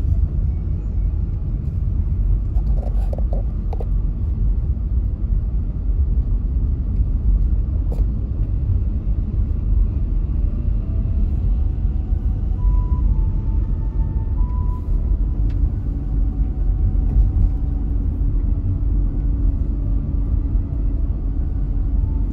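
Steady low rumble of a car driving on a paved city street, heard from inside the cabin: engine and road noise.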